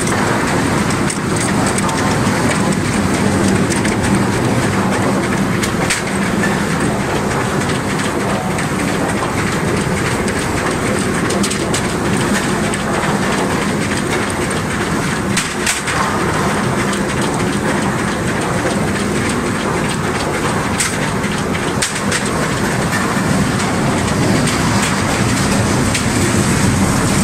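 Tooth roller log debarker running: a steady, loud machine drone with scattered knocks as logs tumble against the toothed rollers and the bark is peeled off.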